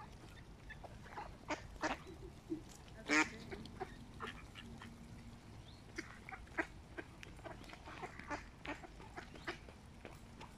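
Mallard ducks quacking in short, scattered calls as they compete for food; the loudest call comes about three seconds in.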